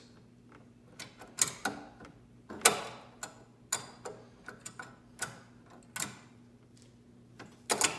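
Pliers clicking and scraping on a bicycle's headset nut as they grip, slip and turn it, in irregular metal-on-metal clicks. The nut is stubborn and is loosening less than expected.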